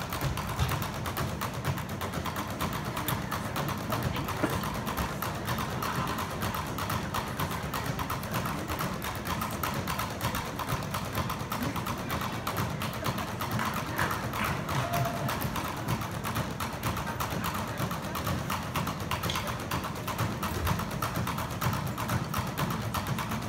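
Several drummers tapping drumsticks on hard-shell suitcases used as drums: fast, steady, fairly quiet tapping.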